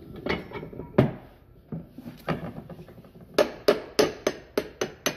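Hand-lever arbor press bending a metal hinge bracket strip over a pipe bending block: a series of sharp metal clanks, a few spaced out at first, then quickening to about three or four a second in the second half.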